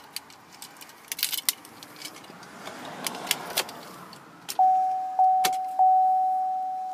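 Keys jangling and clicking at the steering column, then about two-thirds of the way in the Silverado's dashboard warning chime starts as the ignition is switched on: one clear bell-like tone struck again and again, each strike fading away.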